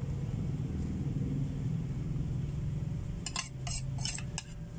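A metal spoon scraping and clinking against a ceramic plate of spaghetti in quick strokes, about five a second, starting about three seconds in. Before that, a low rumble.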